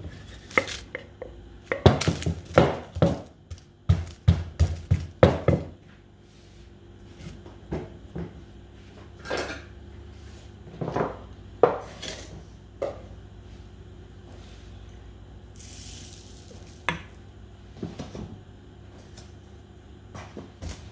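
Wooden pestle pounding garlic and dried chilli in a wooden mortar. A quick run of knocks about two to six seconds in gives way to slower, scattered single knocks.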